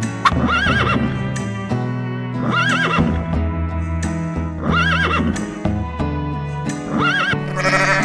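Background music of slow sustained chords with a wavering melodic figure repeating about every two seconds. Near the end a goat's bleat begins over the music.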